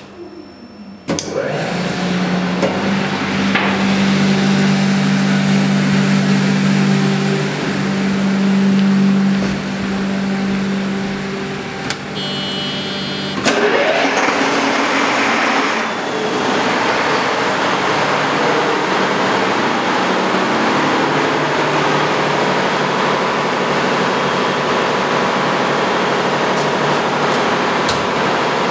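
Engine-room machinery running with a loud, steady hum that comes up suddenly about a second in. Near the middle a brief high buzzer sounds, then a Scania diesel engine is started from its panel and catches, and its dense, steady running noise fills the room.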